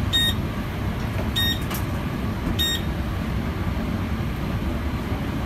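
Steady low rumble of a commercial kitchen's gas burners and ventilation, with three short high electronic beeps about a second apart in the first three seconds.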